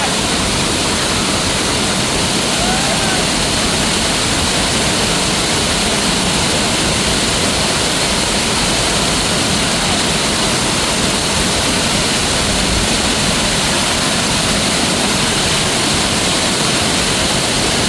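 A waterfall pouring steadily, an unbroken rush of falling water.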